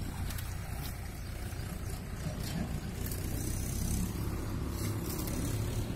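A wet mesh keepnet being lifted from the water and a fish handled in it: several short rustles and splashes over a steady low rumble.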